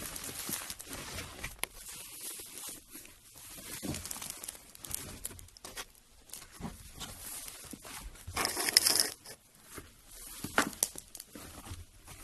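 Slime being squished and stretched by hand: irregular crackling, tearing and popping, with the loudest burst about eight and a half seconds in.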